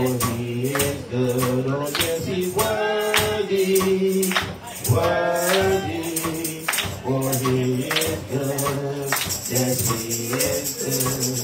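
Gospel chorus sung into a microphone, led by a man's voice, with a tambourine and hand clapping keeping a steady beat.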